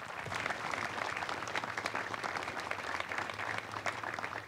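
Audience applauding, with many hands clapping at a steady level.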